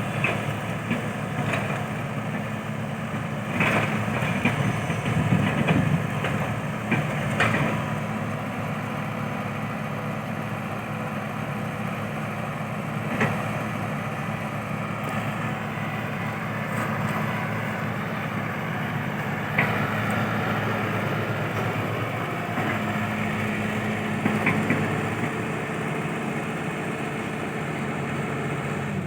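An engine running steadily at idle, with a few short knocks.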